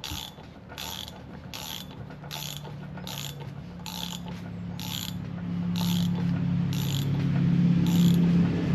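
Hand ratchet running down a Harley-Davidson rear sprocket bolt, with a burst of pawl clicks on each return stroke at about one and a half strokes a second. The bolt still has a long way to go before it seats. A steady low hum grows louder through the second half.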